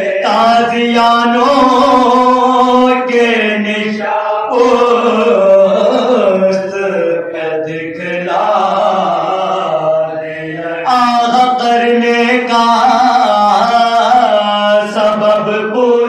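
Group of men chanting a Shia mourning elegy (soz, salam, marsiya) in unison into a microphone, unaccompanied, with long held notes.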